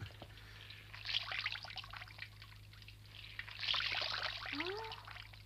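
Water trickling and splashing into a basin as a wet cloth is wrung out, in two spells: about a second in, and more strongly around four seconds in.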